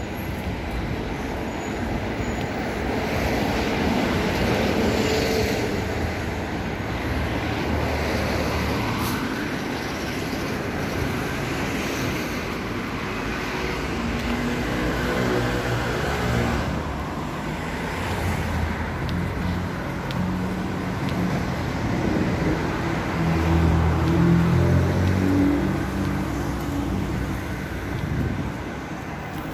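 Street traffic: cars driving past on a city road, a steady wash of tyre and engine noise. A vehicle's engine hum grows louder as it passes, loudest about three quarters of the way through.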